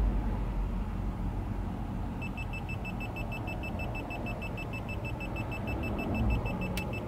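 Rapid high-pitched warning beeps from DJI FPV control gear, about six a second, starting about two seconds in, over a steady low rumble of traffic. A single click near the end.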